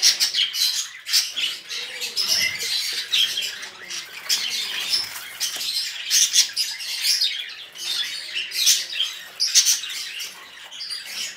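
Budgerigars chirping and squawking: a dense run of short, high calls and squeaks with no break.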